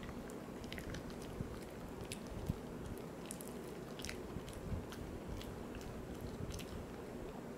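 A poodle chewing a Virbac C.E.T. VegiDent dental chew: irregular crunching clicks as its teeth work the chew.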